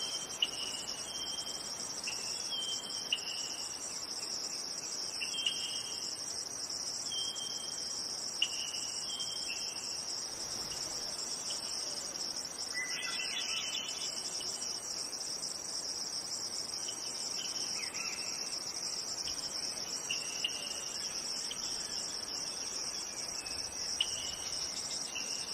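A steady, high-pitched insect chorus, like crickets, with shorter chirps repeating about once a second over it for the first ten seconds and a brief rising call about thirteen seconds in.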